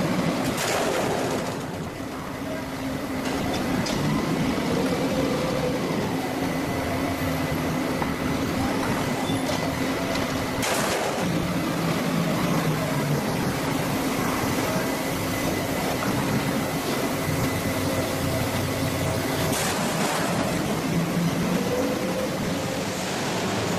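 Filter press machinery running with a steady hum and a faint high whine, broken by a few sharp knocks spread through.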